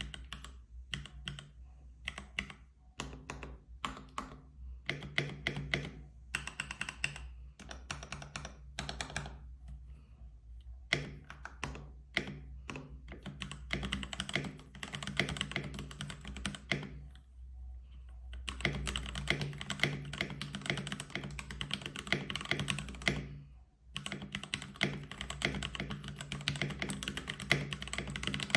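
Typing on a Keychron K6 mechanical keyboard with Gateron G Pro Brown tactile switches and its stock keycaps. It starts with separate keystrokes and builds into fast, continuous typing in two long runs, with short pauses between.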